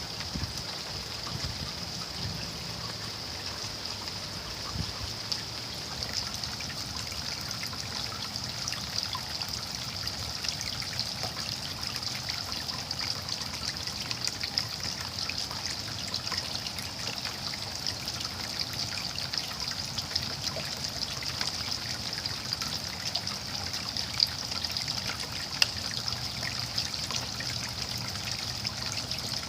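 Steady rain with water trickling, made up of many small drop ticks, and a couple of louder single drips near the end.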